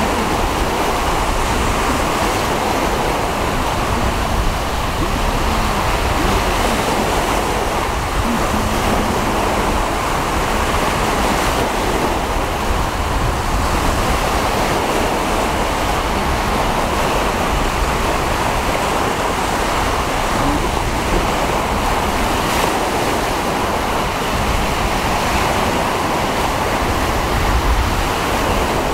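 Choppy sea waves washing, with strong wind rumbling on the microphone; a steady rushing noise with no let-up.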